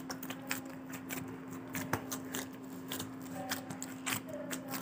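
Hands kneading wet whole-wheat atta dough in a metal bowl: irregular sticky squelches and clicks as the dough is pressed and pulled. A faint steady hum runs underneath.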